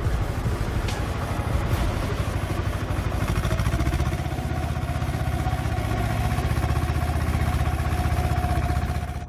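Heavy machine's engine running hard with a dense, rhythmic rumble. A steady whine joins it about three and a half seconds in, and both cut off abruptly at the end.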